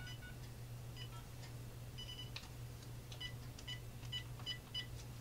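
Faint short beeps of the Uniden EXAI7980 cordless phone's keypad as a number is dialled, coming in a quick run of about four a second in the second half, over a steady low hum.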